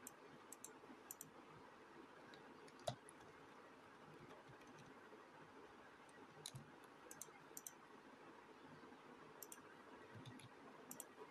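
Near silence: faint room hiss with a scattering of small, sharp clicks, one louder click about three seconds in.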